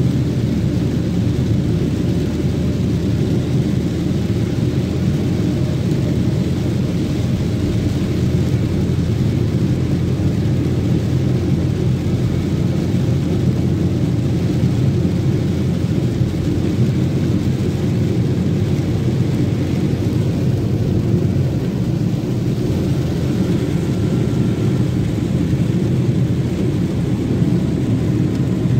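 Steady rumble inside a moving car's cabin in heavy rain: road and tyre noise on the wet road mixed with rain on the car.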